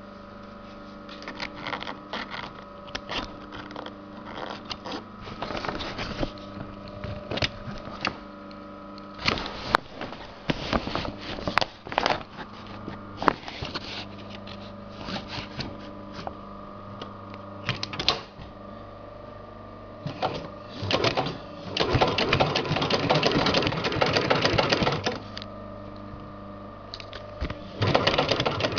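A 9266 heavy-duty industrial zigzag sewing machine stitches webbing onto sailcloth in short bursts, then in a longer run of about three seconds about three quarters through, and starts again near the end. A steady hum runs between the bursts.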